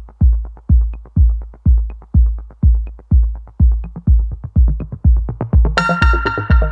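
Electronic background music: a heavy kick drum on a steady beat about twice a second, with a synth chord coming in near the end.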